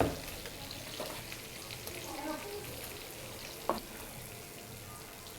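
Faint steady hiss with a few light knocks and clicks, typical of kitchen handling: fried fish being moved into a mixer grinder jar.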